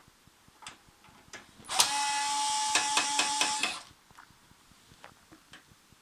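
Electric screwdriver running for about two seconds with a steady whine, backing out a side screw from the printer's casing, with a few small clicks before it.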